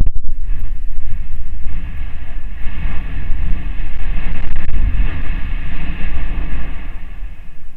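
Stromboli volcano erupting: a sudden blast at the start, then a loud, sustained rumble.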